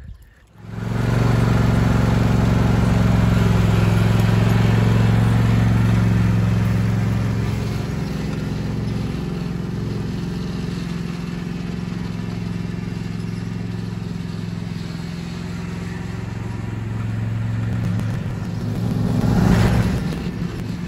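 John Deere riding lawn mower's engine running steadily as it tows a wire-mesh drag over loose dirt. It cuts in about a second in, eases off somewhat as the mower moves away, and grows louder again near the end as it comes back close.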